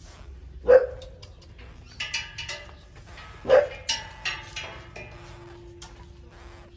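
Short, sharp animal calls, two loud ones about three seconds apart, with quieter high chirps between them.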